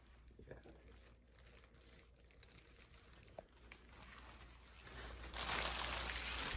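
Cloth cover rustling and clear plastic wrap crinkling as a speaker is unwrapped by hand. Faint at first, with the crinkling growing louder from about five seconds in.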